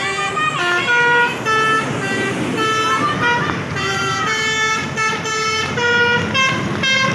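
Telolet horn on an Arto Rejo Trans bus: a set of musical air horns playing a tune. It is a run of loud notes, each held about half a second, with short breaks between them, over engine and street noise.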